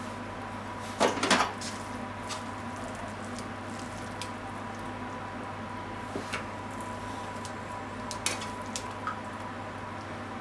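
Frying pan and cooking utensils clattering while stir-fried spaghetti is served onto a plate: two quick loud clatters about a second in, then a few light clicks, over a steady low hum.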